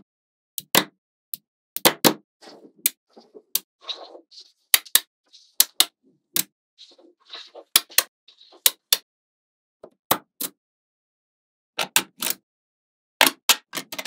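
Small magnetic balls clicking sharply together as slabs of them are snapped onto one another, in irregular single clicks and quick clusters, with quieter scraping sounds between them.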